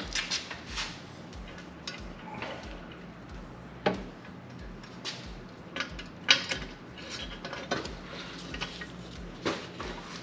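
A stainless steel catback exhaust section clinking and knocking against its fittings as it is lifted and worked into place under the car: a string of irregular metallic clanks, the loudest a little past the middle.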